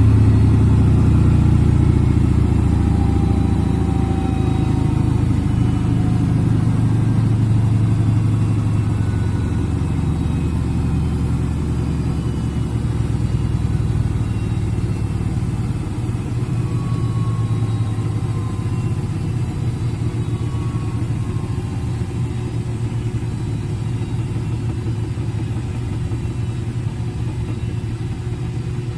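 Front-load washing machine spinning: a steady low hum from the drum and motor, with faint whines that fall in pitch, slowly getting quieter across the stretch.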